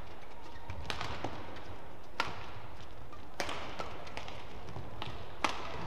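Badminton rally: rackets strike the shuttlecock back and forth in a string of sharp hits about a second apart, the last one near the end the loudest.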